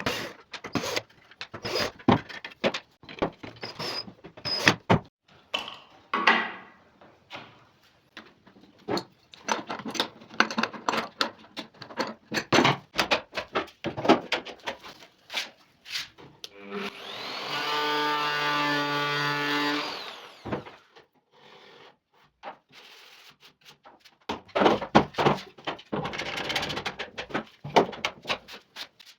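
Router milling a 1 mm edge banding flush: many short rasping cutting strokes. Near the middle the motor spins up and runs alone on a steady whine for about three seconds, then the cutting strokes start again.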